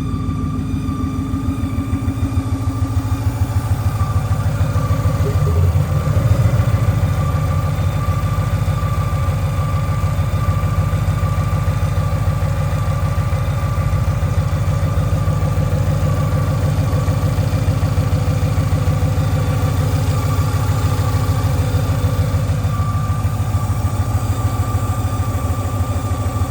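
Boosted Ford Mustang Boss 302 V8 idling, with a steady high-pitched whine over the engine note and a short swell in engine sound about six seconds in. The owner is trying to trace the whine, a whistle that sounds like the boost system.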